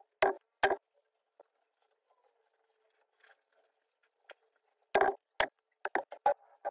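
Handling clicks from a mascara tube and a compact mirror. There are two sharp clicks near the start, then a quick run of about five clicks and taps about five seconds in.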